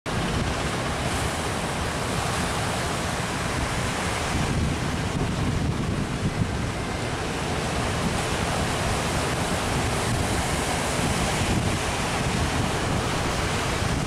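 Ocean surf breaking and rushing in a steady wash of noise, with wind buffeting the microphone.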